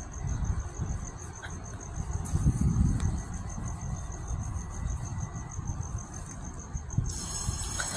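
A cricket chirping in a rapid, even, high-pitched pulse over a low rumble. About seven seconds in the chirping is covered by music.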